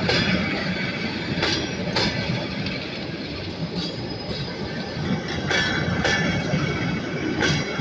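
Train wheels clacking over rail joints, the knocks coming in pairs about half a second apart every couple of seconds, over the steady rumble of the moving train.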